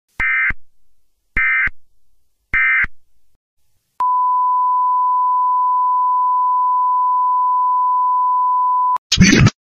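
Three short screeching data-tone bursts, about a second apart, of the kind that make up an Emergency Alert System header. Then a single steady high-pitched television bars-and-tone test tone for about five seconds. It cuts off near the end into loud, harsh, noisy bursts.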